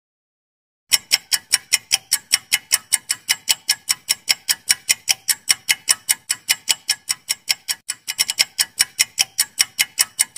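Clock-ticking sound effect for a quiz countdown timer: rapid, even ticks, several a second, starting about a second in, with a brief stumble in the rhythm near the end.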